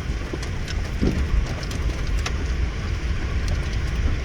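Steady low rumble of a vehicle, with scattered light ticks over it.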